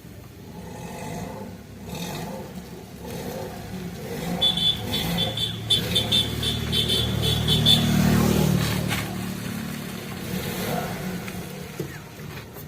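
Maruti Suzuki Alto K10's small three-cylinder petrol engine revving under load as the car works over rough ground during a ground clearance test, swelling to its loudest about eight seconds in and then easing off. A rapid, high-pitched chattering rides over it for a few seconds in the middle.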